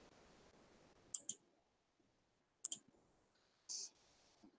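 Faint computer mouse clicks: two quick double clicks about a second and a half apart, then a brief soft brushing sound near the end.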